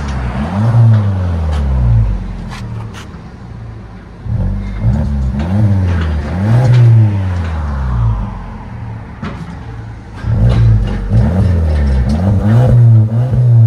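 Exhaust of a 2017 Audi Q3's 2.0-litre turbocharged four-cylinder with the rear muffler deleted (factory converter and resonator kept), heard at the dual tailpipes as the engine is blipped at standstill: repeated short revs that rise and fall, in three bunches with idle between them.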